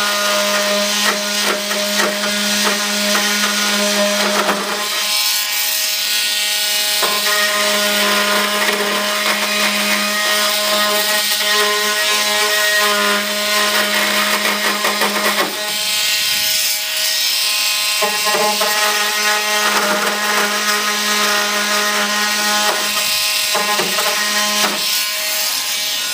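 A small handheld power tool runs with a steady hum while grinding away material to widen a spot on the model jet's body. It stops twice for a couple of seconds and breaks off briefly near the end.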